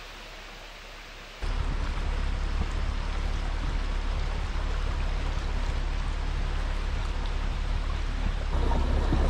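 Water sloshing and spraying around the wheels of a camouflaged 2021 Ford Bronco prototype wading through a shallow water channel, heard close up from the vehicle's side, over a low rumble. It jumps from a quieter hiss to loud about a second and a half in, and grows louder again near the end.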